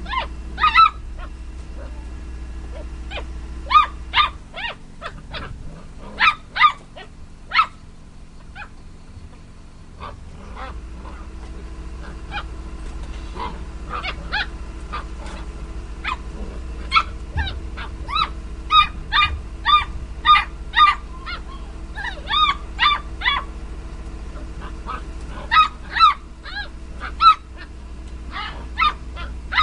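Basset hound puppies yipping and barking in play: short, high calls in runs of several at a time, with a quieter spell partway through.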